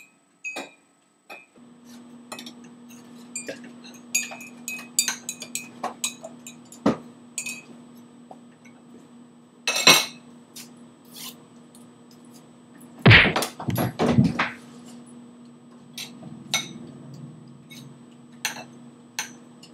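Kitchen clatter: dishes, glass and cutlery clinking and knocking in scattered bursts over a steady low hum, with a few loud, heavy thumps about thirteen seconds in.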